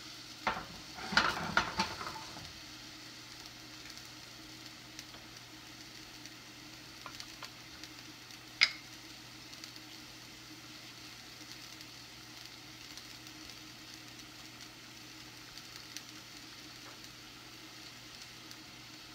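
White-wine sauce simmering and sizzling in a small skillet on a gas burner as it reduces to cook out the alcohol. A few knocks of the pan against the burner grate about a second or two in, and one sharp click about nine seconds in.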